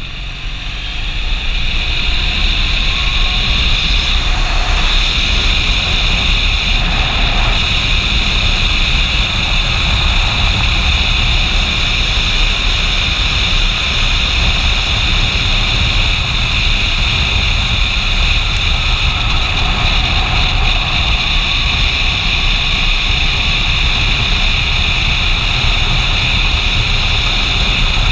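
Motorcycle riding along a road: steady wind and road noise on the microphone with the engine running underneath, growing louder about a second in and then holding steady.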